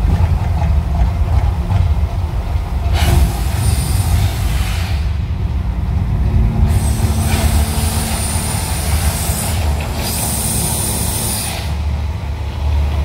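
Mirage volcano eruption effects: a deep, continuous rumble under three loud hissing bursts of two to three seconds each, starting about three, seven and ten seconds in.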